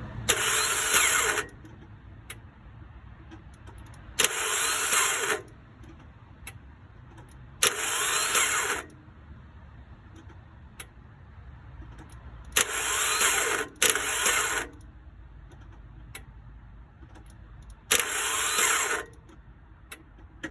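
A 2003 Toyota that won't start makes a weird whining sound on six attempts to start it, two of them back to back. Each try opens with a click and then whines for about a second with a rising pitch, and the engine never catches.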